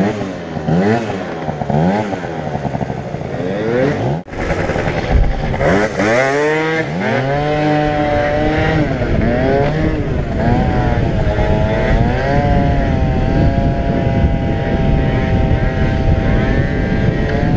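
Yamaha Aerox scooter's two-stroke Minarelli engine revving up and down in quick swells for the first few seconds, then, after a brief break about four seconds in, accelerating and holding high revs at speed with a slight waver.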